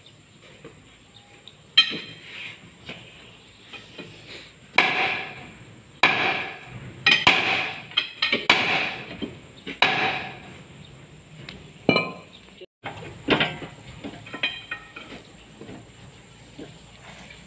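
Hammer blows on steel at a Landini DT85 tractor's front wheel hub, struck to open the hub: about nine heavy strikes at uneven intervals, each ringing briefly, the strongest in the middle.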